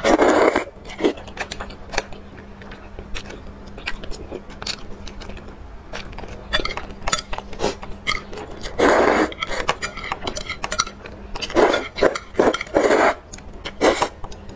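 Close-miked eating sounds: loud wet slurps of noodles in a thick sauce, once at the start and three more times in the last six seconds, with chewing and chopsticks clicking against a bowl in between.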